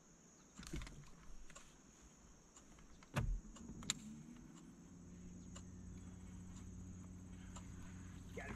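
Bow-mounted electric trolling motor on a bass boat switching on about three seconds in, just after a knock. Its low hum rises briefly in pitch, then holds steady.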